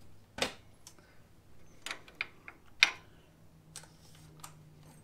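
Metal hand tools, wrenches and sockets, clinking and knocking as they are picked up and handled on a concrete floor: a handful of separate sharp clicks, the loudest almost three seconds in.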